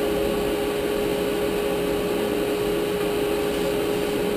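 Table saw running steadily with no board in the blade, giving one constant tone over its motor noise.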